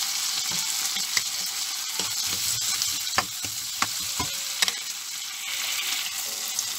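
Onions, garlic and chopped tomato sizzling in a nonstick frying pan, with a steady frying hiss, while a spoon stirs them and knocks and scrapes against the pan several times.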